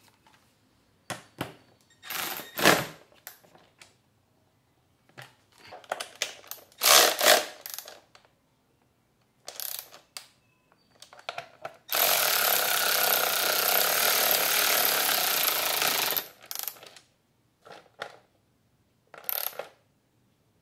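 A cordless ratchet runs steadily for about four seconds, a little past the middle, driving a body-panel bolt home. Around it come scattered short clicks and knocks of bolts, washers and hand tools being handled.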